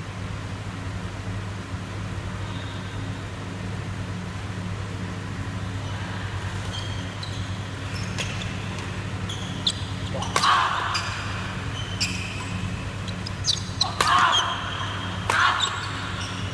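Doubles badminton rally: rackets crack against the shuttlecock while shoes squeak and thud on the court floor. The play starts a few seconds in and grows busier toward the end, over a steady low hum.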